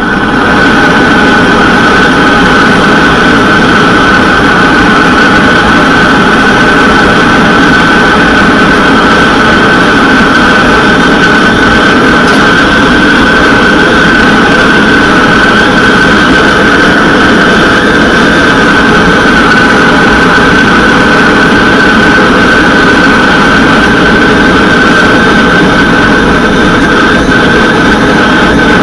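Gas blowtorch burning steadily into a small gas forge for heat-treating a blade: a loud, even rush of flame with a constant high whistling tone.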